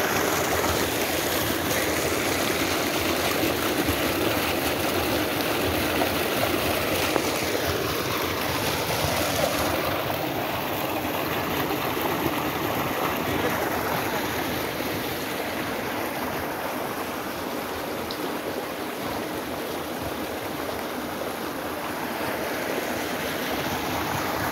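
Pumped water gushing from the outlet pipe of a 15 hp submersible pump and splashing into a pool of water in a concrete tank, a steady rushing.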